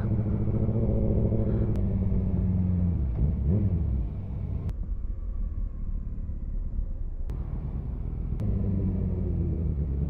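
Small motorcycle's engine running on the move, heard from the rider's shoulder: a steady engine note that eases off about four seconds in as the bike slows, then builds again near the end, with a few faint ticks.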